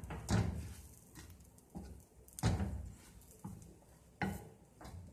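Wooden spatula knocking and scraping against a nonstick frying pan, about six separate strokes a second or less apart.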